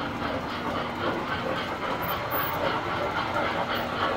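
Tinplate model trains running on the layout, a steady rolling clatter with a regular rhythm of about four beats a second.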